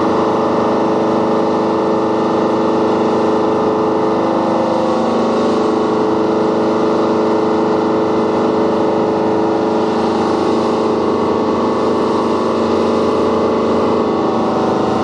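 Small fishing motorboat's engine running steadily at cruising speed, an even drone with the rush of water from the wake over it.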